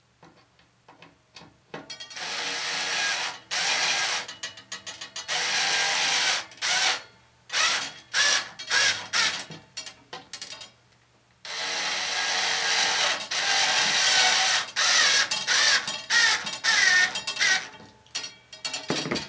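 Cordless screwdriver driving screws into a wooden antenna boom, its motor and gears whirring in repeated start-stop bursts. It starts about two seconds in and pauses briefly about eleven seconds in.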